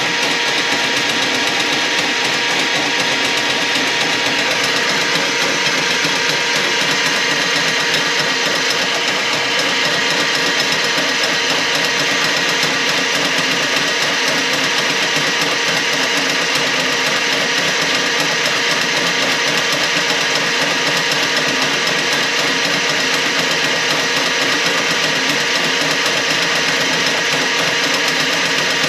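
Motorized drain-cleaning machine running steadily without a break while clearing a grease-clogged kitchen drain line.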